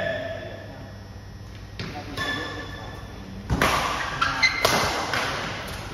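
Badminton rackets striking a shuttlecock in a doubles rally, a few sharp hits that grow louder in the second half, with the hall ringing after each.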